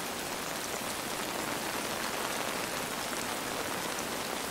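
Steady rain falling, an even hiss with no change in level, from a film soundtrack.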